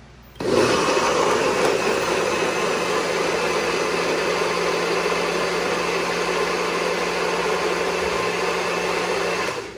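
Blender switched on, running at a steady pitch for about nine seconds as it purées cooked tomatillos, serrano chiles, garlic and a little water into green salsa, then switched off.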